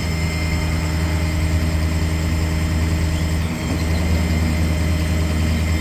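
Ford F-550 truck engine running steadily at its raised PTO idle, driving the hydraulics while the aerial bucket boom is swung. The engine note briefly dips about three and a half seconds in.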